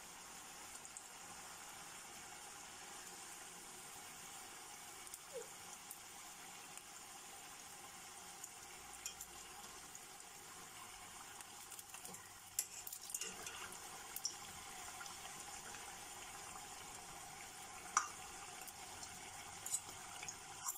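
Cannoli pastry shells deep-frying in hot oil in a steel pot: a steady, quiet sizzle. In the second half, a few light clinks of a fork against the pot as the shells are turned.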